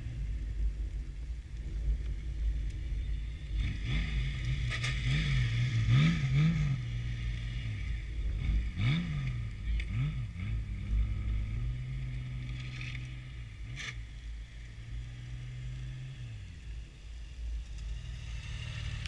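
Honda Gold Wing touring motorcycle's engine at low speed through tight cone turns, its note rising and falling several times with short throttle blips. It then runs steadily as the bike rolls up and stops close by.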